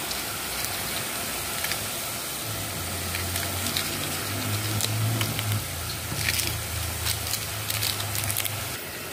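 Chopped onion and tomato sizzling in hot olive oil in a pan, a steady hiss with scattered crackles. A low steady hum joins in a few seconds in and stops just before the end.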